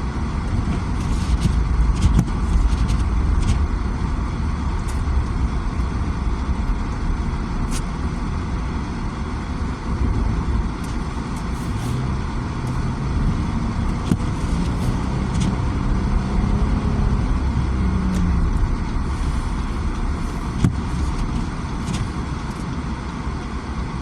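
Road noise inside a moving car's cabin on a snow-covered road: a steady low rumble of engine and tyres, with occasional faint clicks.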